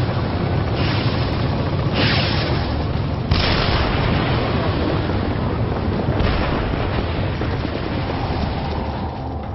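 Booming, explosion-like soundtrack effects: rushing noise over a steady deep rumble, swelling suddenly about a second, two, three and six seconds in, with the sharpest hit near three seconds in.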